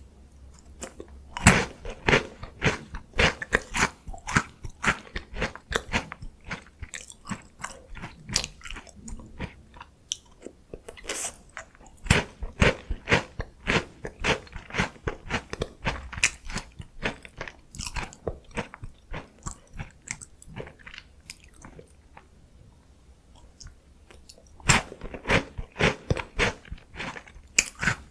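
Close-miked biting and chewing of a crunchy Korean chocolate snack: rapid crunches in quick succession. They ease off for a few seconds about three quarters of the way through, then pick up again with fresh bites.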